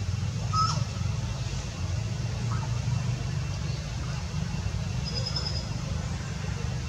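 A steady low rumble with a few faint, short high-pitched chirps over it, one about half a second in, another near the middle and a thin high chirp about five seconds in.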